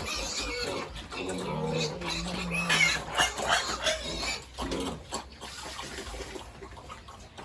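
Pigs grunting: a low, drawn-out grunt about a second in, then a run of higher, noisier calls around three seconds in.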